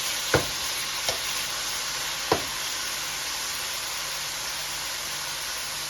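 Cajun-seasoned chicken sizzling steadily as it fries in butter in a pan. Three short knocks come in the first few seconds.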